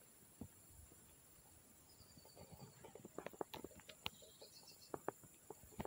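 Near silence outdoors, with faint scattered ticks and taps through the second half and a faint high twitter about two seconds in.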